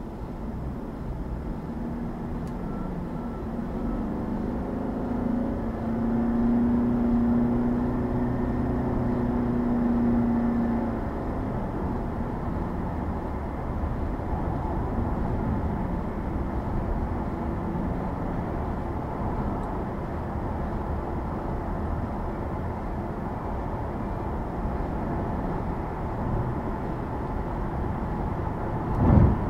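Car driving on a highway: steady road and tyre noise, with a low humming tone that swells and fades in the first third and a sharp thump near the end.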